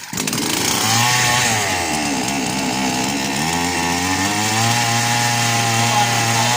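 Two-stroke chainsaw engine starting and running loud, its speed sagging and then picking up again, fed on petrol poured straight into the cylinder through the spark plug hole. That it runs this way shows the engine itself is sound and the fault lies in the carburettor not delivering fuel.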